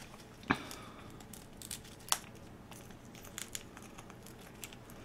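A caique parrot's beak cracking and tearing apart a piece of soft yucca wood: a scatter of small crackles and snaps, with sharper cracks about half a second and two seconds in.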